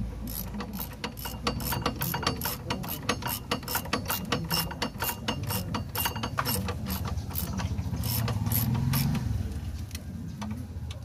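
Ratchet wrench clicking in quick, even strokes, about four clicks a second, on the brake caliper bolts of a Ford EcoSport's front brake. The clicking thins out after about seven seconds.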